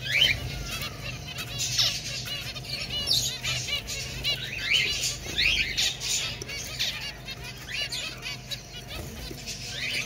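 A flock of zebra finches calling, many short chirps overlapping without a break.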